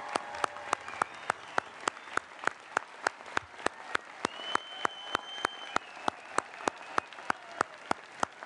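Applause, led by one person clapping steadily and close by at about three to four claps a second, over fainter clapping from the crowd.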